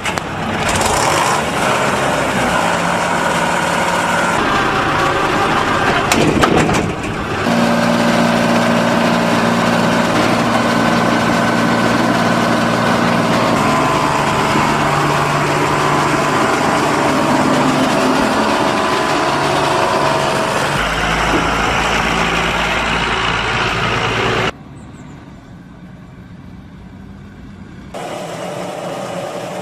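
Fox Max II forage harvester's diesel engine running steadily, its pitch and tone changing abruptly several times, with a brief loud burst of noise about six and a half seconds in. It drops to a quieter, more distant run near the end.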